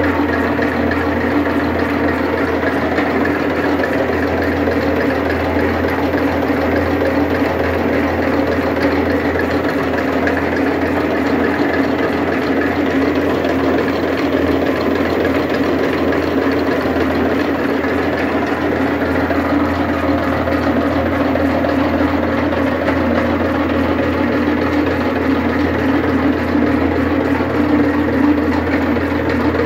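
Gaulin M3 high-pressure homogenizer running steadily after a repair: its plunger pump and drive make a loud, even mechanical drone with a low hum underneath.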